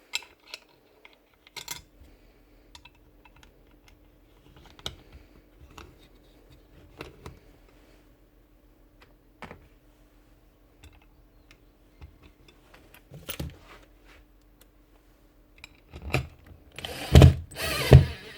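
Hand tools and small metal parts of a sander's paper-clamp lever being handled: scattered light clicks and taps, then loud rapid knocking and rattling in bursts near the end.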